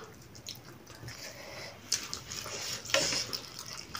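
Close eating sounds: chewing and mouth smacking, with a few small clicks.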